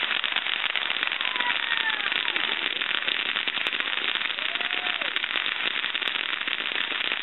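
Ground fountain firework spraying sparks: a steady, dense crackling with hiss as its stars pop.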